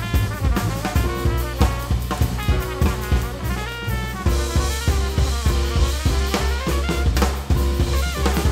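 Drum kit played in a busy groove with many strikes a second on snare and bass drum, the snare a Dunnett Classic Magnesium, over a backing track with a bass line and melodic parts. Cymbal wash comes in about halfway through.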